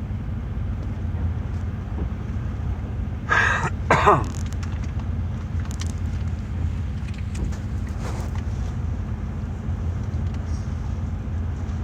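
Steady low rumble of a car on the move, heard from inside the cabin. About three to four seconds in, someone clears their throat twice in quick succession.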